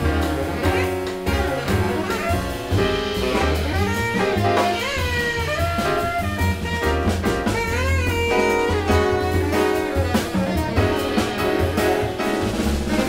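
Live jazz quartet: a tenor saxophone plays a melodic line with pitch slides over a plucked double bass and a drum kit with cymbals.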